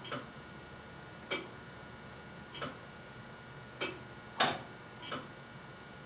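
Tower clock's original mechanical movement ticking evenly, about one sharp tick every one and a quarter seconds, with one louder extra click about four and a half seconds in.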